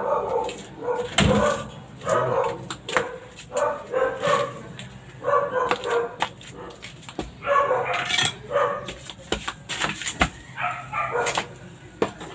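A dog barking and whimpering in short calls repeated all through, with scattered sharp clicks and knocks.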